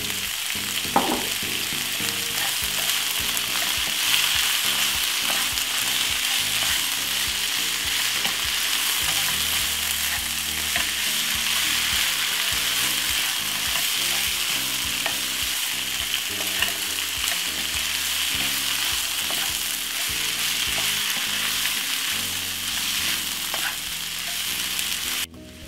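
Pasta and cabbage sizzling steadily in an oiled non-stick pan while a wooden spoon stirs them, with a few sharp ticks of the spoon against the pan. The sizzle cuts off suddenly near the end.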